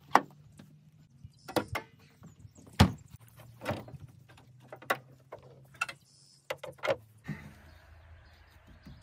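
A string of separate sharp clicks and knocks of a pickup's door and latches being worked, with a steady background hiss coming in about seven seconds in.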